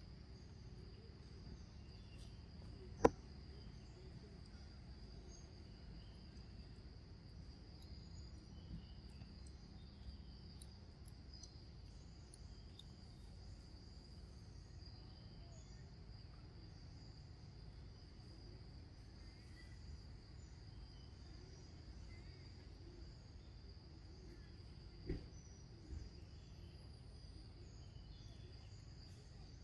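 Faint, steady, high-pitched insect drone, with one sharp click about three seconds in and two smaller knocks about a second apart near the end.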